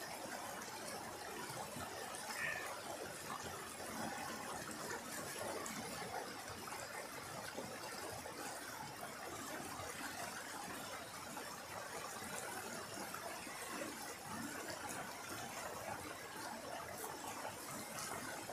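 Small stream rushing and splashing over rocks in a steady wash.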